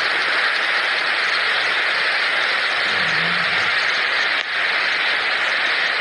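Floodwater rushing down a flight of steps in a loud, steady torrent.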